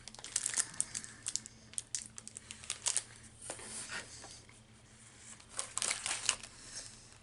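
Plastic snack-bar wrapper crinkling in several short bursts as it is handled.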